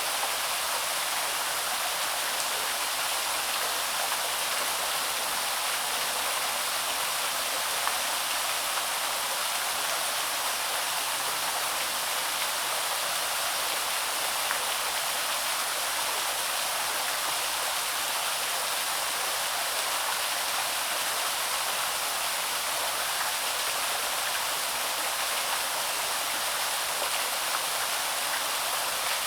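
Small woodland waterfall splashing and rushing steadily: a constant, even hiss of falling water with no change.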